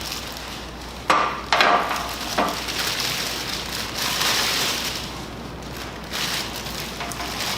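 Three sharp knocks and clatters of hard objects being handled, about a second apart, followed by a few seconds of rustling, scraping noise.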